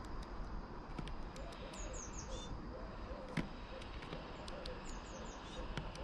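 Small songbirds calling in the background over a steady low hum, with a short run of high chirps about two seconds in and again about five seconds in. A blackbird's beak taps sharply on the bird table's decking as it feeds, the loudest tap about three and a half seconds in.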